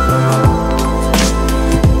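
Background music with a steady beat: held chords over a deep bass line, with a low kick-drum thump about every second and a half.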